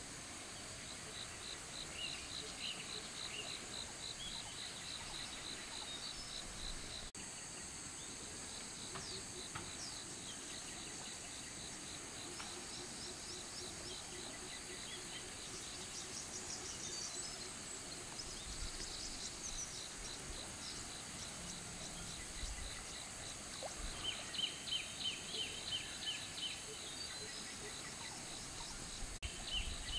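Outdoor ambience: a steady high-pitched insect drone, with a bird giving rapid trills of quickly repeated notes in the first few seconds and again near the end.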